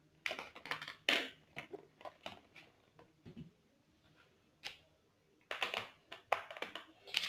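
Slime being handled and pressed back into its container: scattered soft clicks and sticky squishes, a cluster at the start, a near-silent stretch in the middle, and more from about five and a half seconds in.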